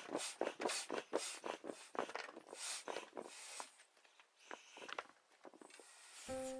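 A quick run of short crunching or scraping strokes, about four a second, that thins out after about four seconds; music starts near the end.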